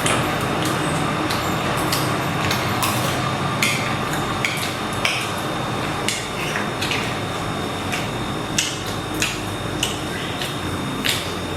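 Spoons clinking and tapping on plates as people eat: irregular light taps over steady background noise.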